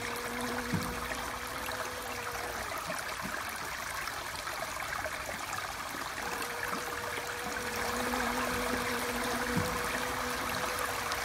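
Steady rush of running water, like a small stream. A faint, steady hum comes and goes twice, once in the first couple of seconds and again in the second half.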